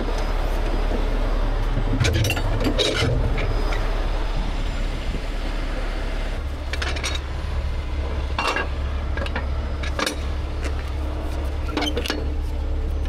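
Scattered metallic clinks and clanks of chain, hook and snatch-block rigging being handled, several through the stretch, over the steady low running of a heavy tow truck's engine.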